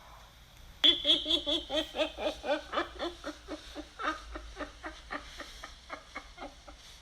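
Demonic laughter sound effect: a sudden burst of rapid, rhythmic "ha-ha-ha" laughing about a second in, about four laughs a second, loudest at the start and dying away over several seconds.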